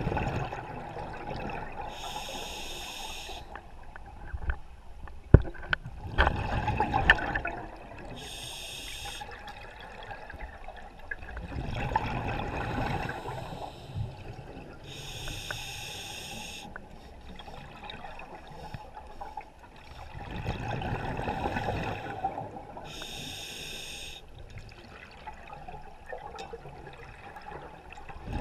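Scuba diver breathing through a regulator, heard underwater through the camera housing: a short hiss on each inhale and, a few seconds later, a gurgling rush of exhaust bubbles on each exhale, four breaths about every six to seven seconds. One sharp knock about five seconds in.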